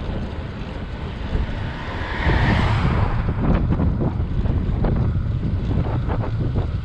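Wind buffeting the microphone of a camera riding on a moving bicycle, a steady low rumble that swells into a louder rush about two seconds in. Scattered knocks and rattles follow from about three seconds in.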